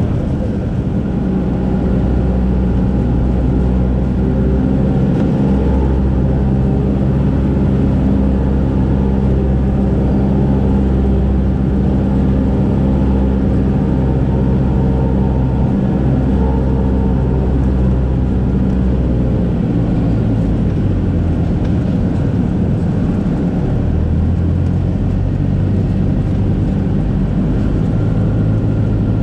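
Single-engine light aircraft's piston engine and propeller droning steadily, heard from inside the cockpit on the final approach to landing. The engine note shifts about two-thirds of the way through.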